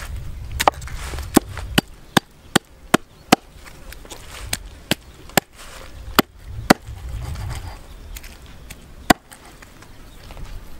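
Knife chopping a snake into pieces on a round wooden chopping block: about a dozen sharp chops, quick and fairly regular for the first few seconds, then more spaced out, the last about nine seconds in.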